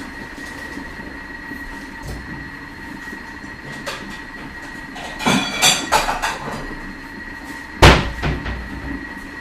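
Thermomix TM6 running steadily at 120 °C, a constant hum with a thin high tone. About five seconds in, dishes clatter as they are handled, and a sharp loud knock comes near eight seconds.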